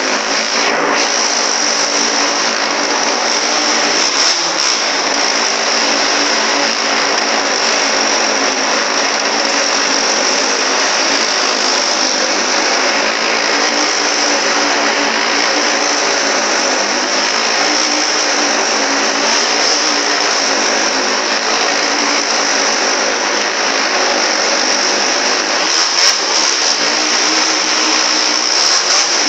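Wall-of-death stunt motorcycle engines running hard without a break, the pitch rising and falling as the throttle is worked.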